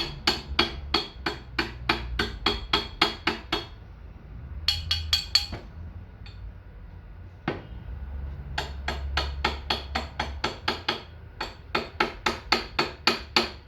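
Small mallet hammering the pins of a machete handle, rapid ringing metallic taps about three a second, peening them over to fix the handle. The tapping pauses twice, briefly after about four seconds and for about three seconds midway, then resumes.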